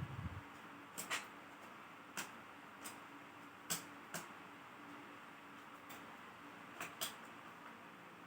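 Faint, scattered small clicks and taps, some in quick pairs, from tools and small parts being handled during a laptop teardown, over a low steady hum.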